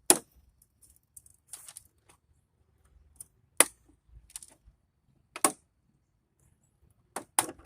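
Sharp metallic clicks and knocks from a desktop computer's case and parts being handled while it is taken apart: one right at the start, others about three and a half and five and a half seconds in, and a quick pair near the end, with faint rattling between.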